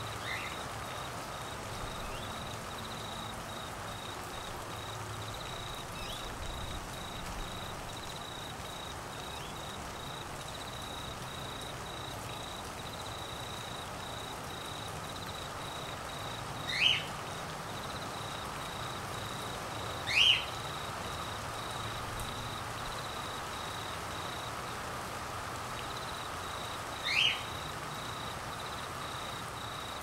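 Steady rain with a constant high, rapidly pulsing insect-like trill and a lower chorus underneath. Three times in the second half, a short, loud bird call sweeps upward in pitch.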